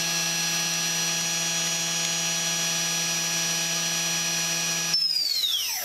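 Makino S56 machining center spindle running free at 12,000 RPM with a steady high whine. Near the end the whine falls steeply in pitch as the spindle spins down.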